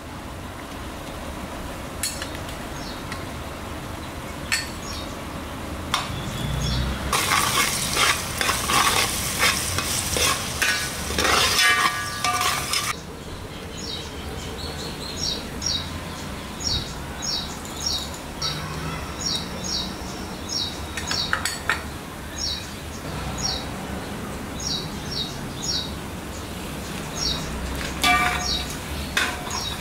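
Chopped onions, spices and ginger garlic paste frying in ghee in a metal pot, sizzling while a steel spoon stirs through them. The sizzle swells for several seconds about a quarter of the way in, and a run of short, regular clicks of the spoon follows, about one a second.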